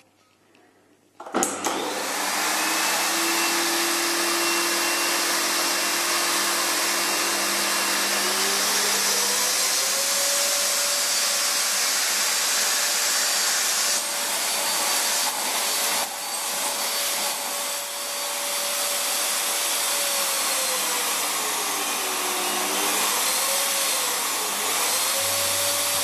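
Dirt Devil DD7014 Popster bagged canister vacuum cleaner switched on about a second and a half in, then running steadily. Its motor pitch rises about ten seconds in, holds, then falls and wavers up and down near the end as the suction power slider is moved.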